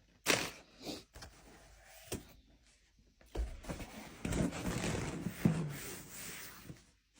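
Handling noise: a few sharp knocks, then a few seconds of scraping and rustling with one more knock, as something is moved about in a small room.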